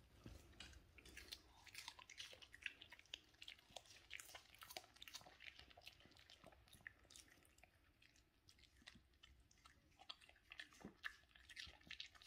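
A chihuahua chewing a piece of raw red bell pepper: faint, irregular crunching and clicking bites throughout.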